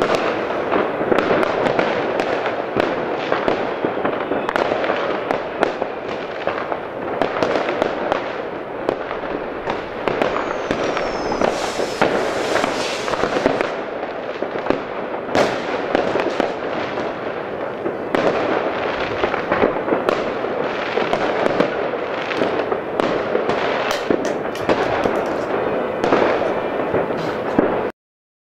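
Many fireworks going off at once across a town: an unbroken din of firecracker bangs, rocket bursts and crackle, with a falling whistle about eleven seconds in. The sound cuts off abruptly near the end.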